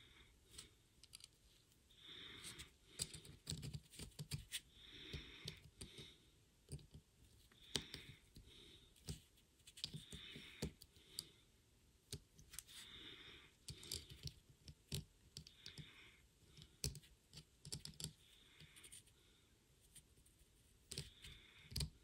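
Faint clicks and scrapes of steel needle-nose pliers squeezing the thin metal tabs of a small toggle switch flat against its body, with a soft hiss every two or three seconds.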